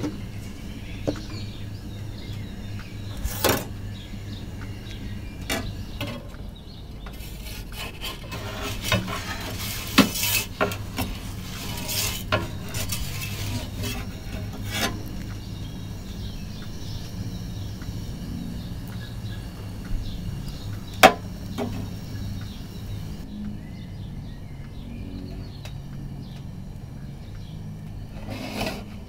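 Gas burner of an Ooni Karu 12 pizza oven running with a steady low rush, overlaid with scattered clinks and scrapes of a metal pizza peel against the oven as the pizza is turned. A cluster of scrapes comes about a third of the way in, and one sharp knock about three-quarters of the way through.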